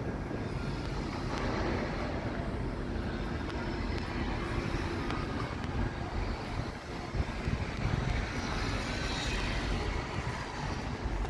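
Steady outdoor city background noise: a continuous low rumble with a hiss over it and no single clear source.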